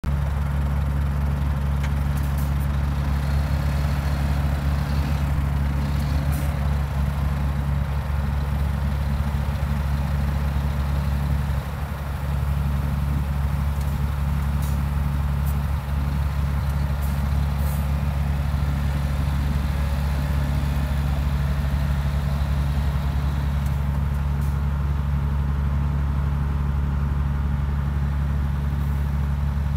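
Scania G 480 hooklift truck's inline-six diesel engine running steadily at low revs as the truck pulls slowly away, with a few faint clicks over it.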